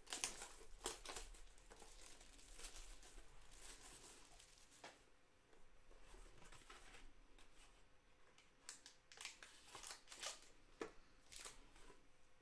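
Faint rustling and crinkling as a cardboard trading-card hobby box is opened and its foil-wrapped packs are pulled out and handled, in scattered short crackles.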